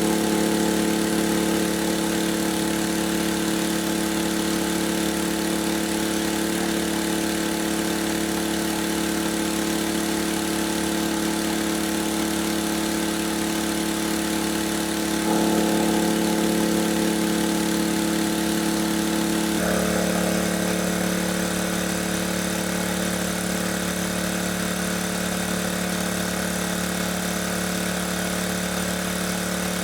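A small engine running steadily at constant speed, with abrupt shifts in its tone about 15 and 20 seconds in.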